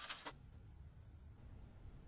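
Near silence: low room tone, after a brief crackle right at the start.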